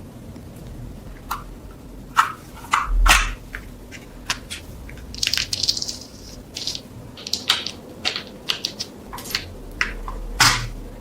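Irregular clicks, taps and short scrapes of hand work on small parts, with a brief hissing scrub about five seconds in.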